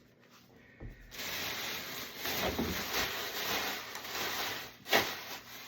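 Packaging rustling and rubbing as a large cardboard box is opened and its contents handled, starting about a second in. A sharp knock comes near the end.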